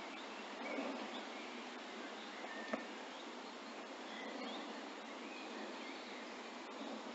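Quiet outdoor lakeside ambience: a steady hiss with faint, scattered bird chirps, and a single sharp click about two and a half seconds in.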